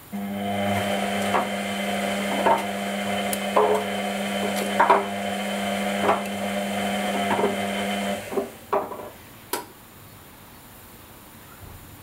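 Whirlpool Indiana 1400 front-loading washing machine's drum motor starting suddenly and turning the drum with a steady hum for about eight seconds, the laundry knocking inside about once a second. The motor then cuts out and a few last knocks follow as the drum comes to rest.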